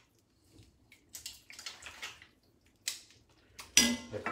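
Scattered light clicks and clatter of metal tongs and mussel shells around a steel pan, with one louder clank near the end.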